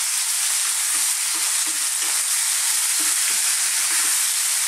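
Sliced chicken and aromatics sizzling hard in sesame oil in a wok over high heat, with a wooden spoon scraping and turning them about twice a second.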